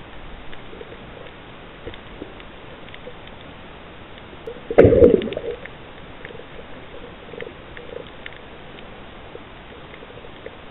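Underwater ambience picked up by a snorkeler's camera: a steady hiss with faint scattered clicks, and one loud, muffled burst lasting under a second, about five seconds in.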